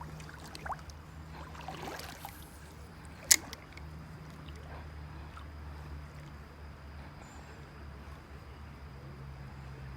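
Small creek water trickling and gurgling steadily, with one sharp click or tap about three seconds in.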